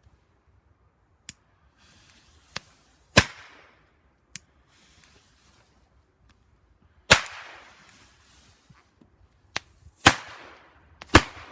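Firecrackers going off: about eight sharp bangs at uneven intervals, four of them loud with an echoing tail, the others fainter pops.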